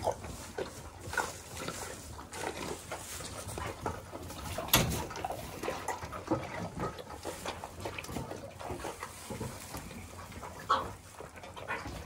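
Dairy calves slurping and lapping milk from stainless steel bowls, an irregular run of wet sucking and smacking sounds, with a single sharp knock about five seconds in.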